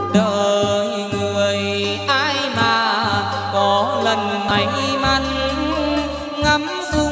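Chầu văn ritual music from the live ensemble: a melody with wavering pitch over a steady low accompaniment that breaks off and comes back in.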